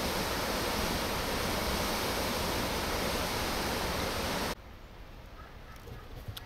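Mekong waterfall rapids: a steady rush of white water that cuts off suddenly about four and a half seconds in, leaving quieter surroundings with a few faint clicks near the end.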